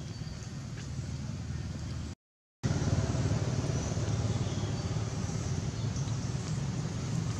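Steady low rumble of outdoor background noise with no clear animal calls. It drops out to silence for a moment about two seconds in and comes back louder.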